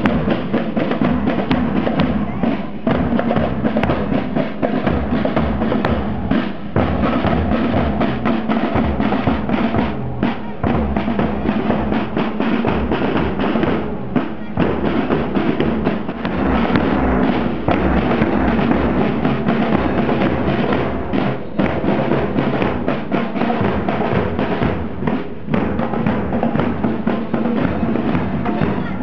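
Marching drum band of bass drums and snare drums beating a continuous parade rhythm.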